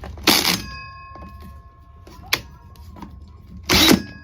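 Power drill fitted with a 4-inch bi-metal hole saw, given two short trigger pulls: each time the motor whirs up briefly and stops. A single sharp click comes between them.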